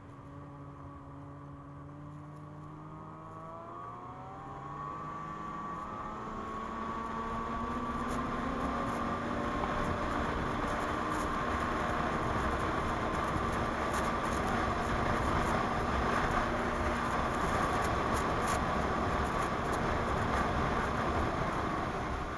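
A Ski-Doo MXZ snowmobile's 600 Carb two-stroke twin engine speeding up, its pitch rising over a few seconds, then running steadily at speed with an even rush of noise.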